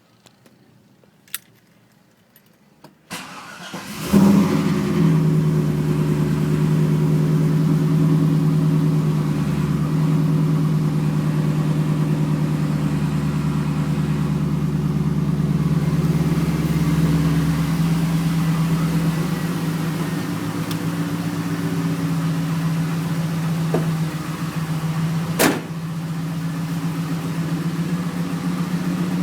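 Chevrolet Camaro SS's LS1 5.7-litre V8 cranked and started about three seconds in, then running at a steady idle. It has a spun #3 connecting rod bearing, the cause of the rod knock. A sharp click is heard near the end.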